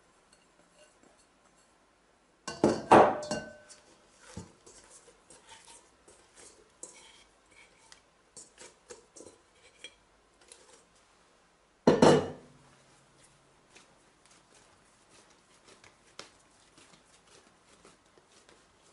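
Kitchen mixing bowls, a glass bowl and a stainless-steel stand-mixer bowl, clattering against a wooden counter: two loud knocks, about three seconds in and again about twelve seconds in, each ringing briefly. Between them come faint taps and rustles of hands handling soft yeast dough and the bowls.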